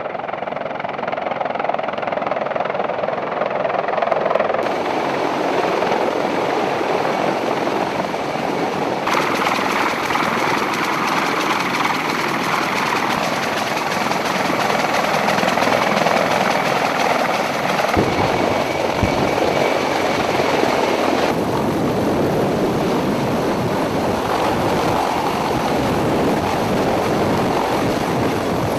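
CH-53E Super Stallion heavy-lift helicopter running close by, a loud steady rotor and turbine roar. Its sound changes abruptly a few times, about a quarter, a third, two-thirds and three-quarters of the way through.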